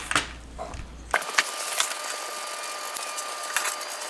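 Scattered light clicks and taps of screws and black aluminium frame parts being handled while assembling a laser engraver's X-axis gantry. A low hum in the recording cuts off about a second in, leaving a hissy background.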